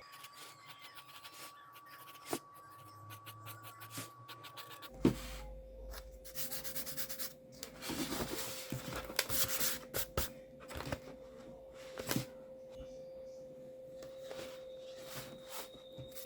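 Pencil scratching and rubbing on paper in quick, uneven strokes while a design is sketched, close to the microphone.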